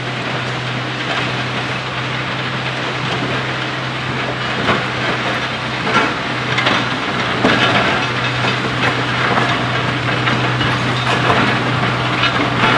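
Ballast regulator's diesel engine running with a steady low hum as the machine travels along the track, with irregular metallic clanks and knocks that come more often from about five seconds in and grow slightly louder as it approaches.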